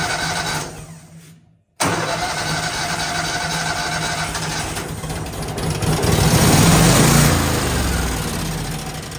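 The electric starter cranking the gas engine of an older Miller Bobcat 250 welder without it catching. One cranking run winds down about half a second in; after a short pause a second, longer run starts abruptly, grows louder in the middle and tapers off near the end. The owner suspects a dried-up fuel pump is keeping the engine from firing.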